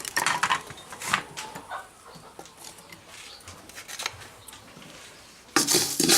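Sharp clicks and ticks of unhusked rice grains popping and rattling in a hot dry pan as it is stirred, thickest in the first two seconds. About five and a half seconds in, a much louder steady hiss starts suddenly.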